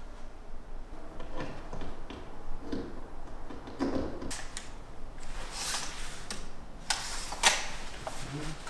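Scattered light knocks and clicks of a wooden wall shelf being handled and fitted onto the wall, with two sharper clicks near the end, the second the loudest.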